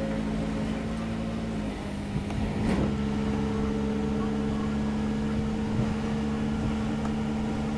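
An engine or machine running steadily nearby, a constant pitched hum whose pitch shifts slightly about two to three seconds in, with a single click near the three-second mark.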